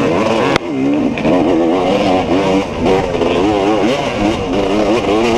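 Off-road dirt bike engine under hard riding, its revs rising and falling quickly over and over. The sound cuts out briefly about half a second in.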